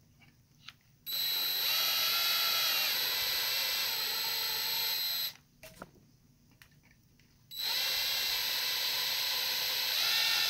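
Hand-held power drill running in two steady bursts of about four seconds each, with a short pause and a few small clicks between, drilling out the rivets that hold a diecast model truck's bed to its chassis.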